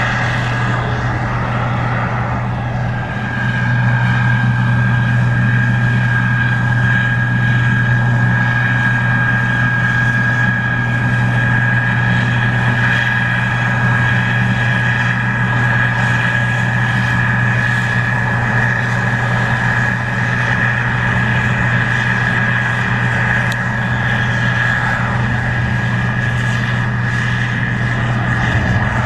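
Case IH 2388 Axial-Flow combine's diesel engine and threshing machinery running steadily under load while harvesting corn: a deep drone with a steady high whine over it, growing louder about three seconds in.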